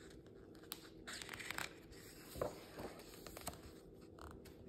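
A page of a picture book being turned by hand: a short paper rustle about a second in, with a few soft taps and clicks as the page is handled and laid flat.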